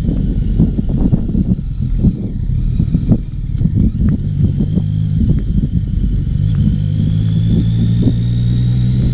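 Yamaha XSR900's inline three-cylinder engine, first easing off with the bike slowing and irregular wind buffeting, then pulling steadily at low revs with its note climbing slowly as the bike accelerates gently.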